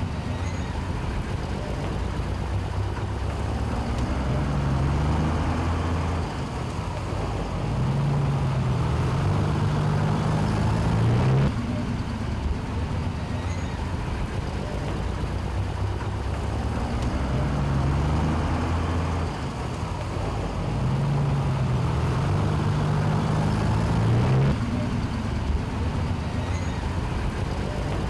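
Road traffic with heavy vehicle engines running, one engine's pitch stepping up and down as it revs. The sound cuts abruptly about eleven seconds in and again near the end, each time starting the same stretch over.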